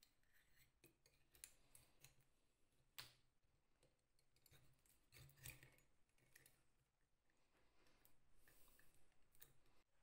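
Faint clicks and light scrapes of small steel parts of a glazing point driver being handled and fitted together, with a few sharper metal clicks scattered through.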